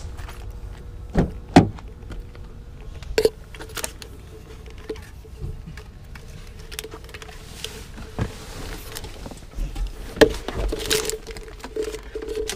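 Keys jingling and a scatter of clicks and knocks as a person opens a car door and climbs into the driver's seat, with a faint steady hum underneath.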